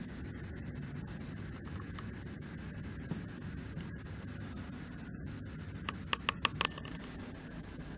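Steady low rumble and hiss of background noise, with a quick run of about five short clicks about six seconds in.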